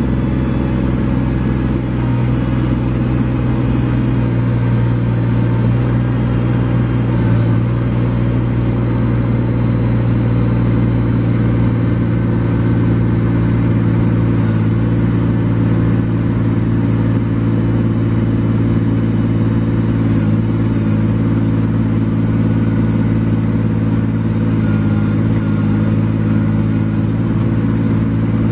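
Kubota BX25D compact tractor's three-cylinder diesel engine running at a steady speed.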